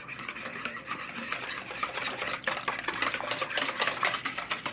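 A wire balloon whisk beating eggs, milk and oil in a plastic mixing bowl: a fast, even rattle and slosh of the wires against the bowl, growing louder over the first couple of seconds.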